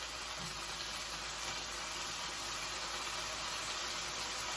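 Chicken pieces frying in a pan, giving a steady sizzling hiss.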